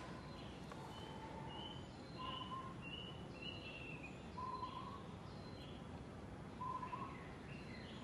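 Birds calling faintly in short, repeated chirps and whistles, some notes falling in pitch, over a steady outdoor background hiss.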